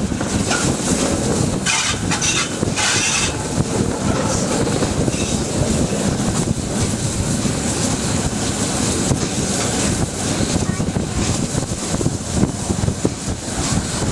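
Steam locomotive running at speed, heard from beside the cab: a steady rumble of the running gear and wheels on the rails, with wind across the microphone and a few short bursts of hiss about two seconds in.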